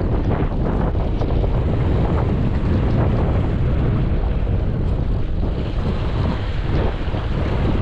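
Strong wind buffeting the microphone in a steady low rumble, with sea waves washing behind it.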